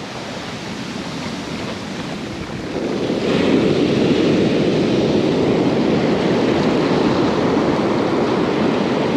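Ocean surf breaking and washing up the sand, growing louder about three seconds in as a wave rushes in, with wind on the microphone.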